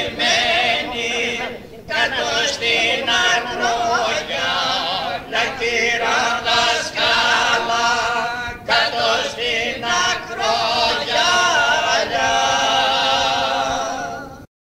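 Several men singing a Greek traditional song of the Nigrita and Visaltia region, apparently without instruments, with long, ornamented, wavering held notes. The singing stops abruptly near the end.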